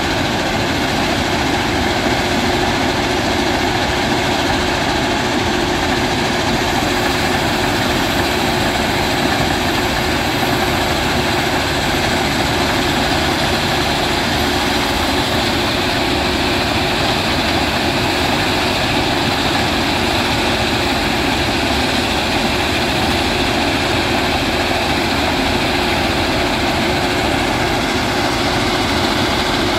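Matisa C75-2c ballast cleaning machine running steadily at work: a loud, even mechanical drone of its engines and working gear with a constant hum through it.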